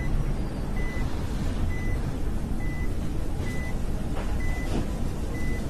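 A short, high electronic beep repeating a little faster than once a second over a steady low rumble.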